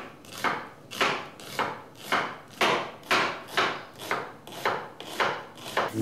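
Chef's knife slicing a red onion thin on a wooden chopping board, a steady rhythm of about two cuts a second.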